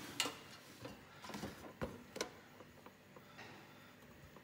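Light, scattered clicks and taps from the contents of a metal Pokémon collector's tin being handled, the loudest near the start and about two seconds in.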